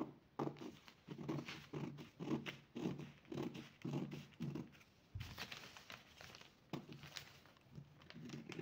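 Scissors cutting through a paper pattern: a steady run of snips, about two or three a second, then a louder handling sound about five seconds in and slower, sparser cuts.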